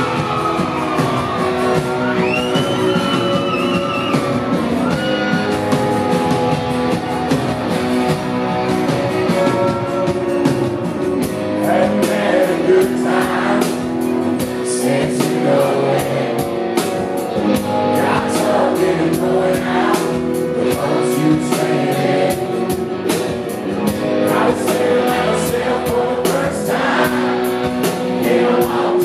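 Live country band playing: a male lead singer over strummed acoustic guitar and bass, with the drums coming in on a steady beat about eleven seconds in.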